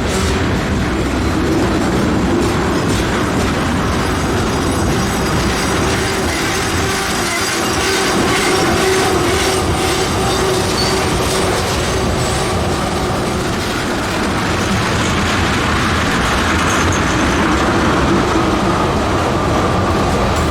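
Freight train of loaded tank cars rolling past: a steady rumble of steel wheels on rail, with a faint thin wheel squeal over it and a few clicks in the middle.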